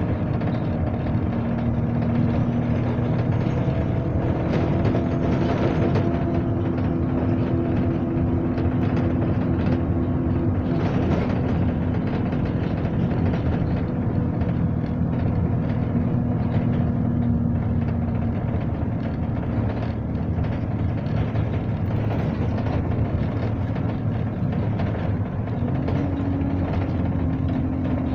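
Alexander Dennis Enviro 200 single-deck bus heard from inside the passenger saloon while on the move: a steady engine and drivetrain drone over road noise. The engine note steps up a little near the end.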